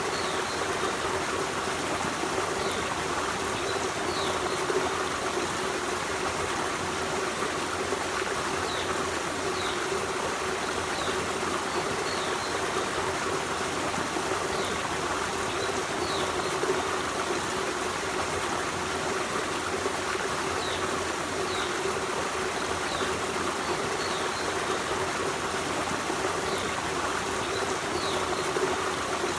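Forest stream running steadily with a constant rushing, trickling sound. Short high chirps from small birds come every few seconds.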